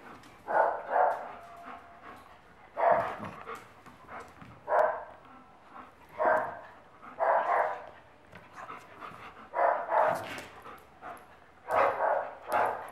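American Akita puppy and adult Akita play-fighting, with short barks in bursts every second or two.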